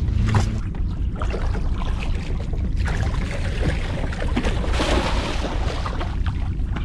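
Steady low rumble of a boat with water splashing, the splashing rising about halfway through and strongest near the end as a hooked fish thrashes at the surface beside the hull.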